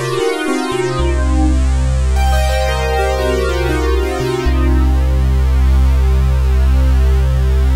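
Sustained polyphonic synthesizer chords with a deep bass, played on Juno-106 emulations with the Juno chorus switched on. The sound breaks off briefly near the start as play moves from the Roland System-8 to the Roland Juno-X, and the chord changes about four and a half seconds in.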